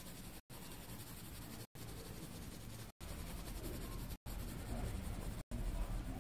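Colouring pen scratching and rubbing on paper as a drawing is coloured in, faint and steady, cut by brief silent gaps about every second.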